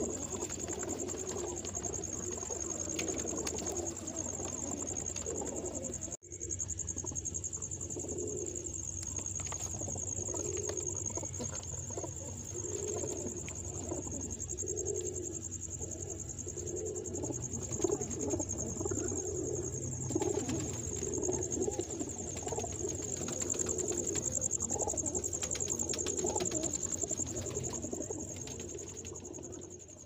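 Domestic pigeons cooing over and over in a cage, with a steady high-pitched whine behind them. The sound cuts out for an instant about six seconds in.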